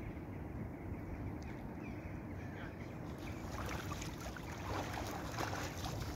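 Water sloshing and splashing as a wet carp weigh sling is worked in the shallows and lifted out, streaming water. The splashing starts about three seconds in and grows busier toward the end.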